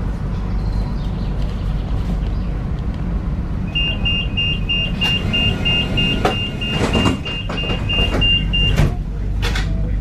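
Tram with a steady low rumble. From about four seconds in, a rapid electronic warning beeps at one pitch, about three beeps a second, for some five seconds, typical of a tram's door-closing warning. A few knocks and clatters fall in the second half.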